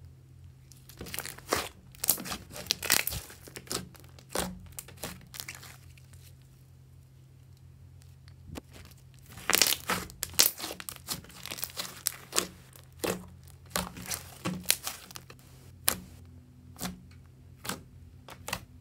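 Slime being stretched, folded and pressed by hand, giving sticky crackling pops and clicks in two busy bursts, the first starting about a second in and the second from about eight seconds, thinning out near the end.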